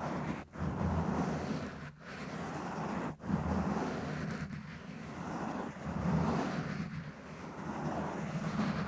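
Microphone being scratched and rubbed directly: a continuous rough scratching noise, heaviest in the low range, with brief breaks between strokes about half a second, two, three and four and a half seconds in.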